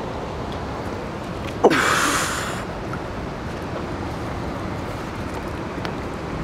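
Short, loud splash about two seconds in as a longnose gar is grabbed by gloved hands in shallow water, over steady wind and water noise.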